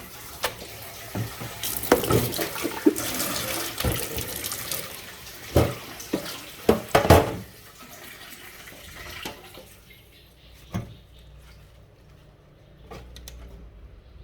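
Tap water running into a sink as oregano leaves are rinsed clean of dust particles, with several sharp knocks and clatters in the middle. The water stops about halfway through, leaving only a few light clicks of handling.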